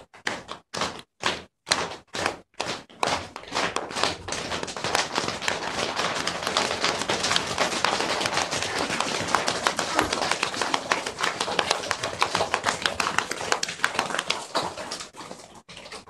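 A class of young children imitating rain with their hands: a few separate taps at first, building within a few seconds into a dense patter of many hands tapping and clapping, then thinning out near the end.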